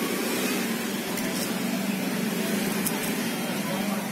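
Steady background hum with hiss, and a few faint light clicks about a second in and again near three seconds.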